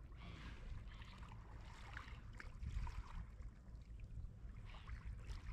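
Faint sloshing and trickling of shallow water, with a steady low wind rumble on the microphone.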